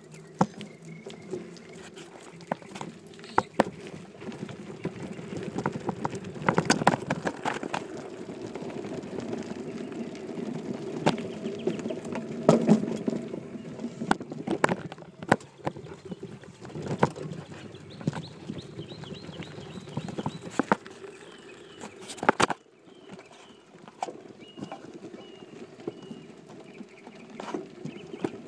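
Mountain bike rolling over dirt and gravel, heard from its handlebar-mounted phone: a steady rumble of the tyres with frequent sharp rattling knocks from the bike and mount jolting over bumps. About three-quarters of the way through the rumble drops away and the knocks come more sparsely.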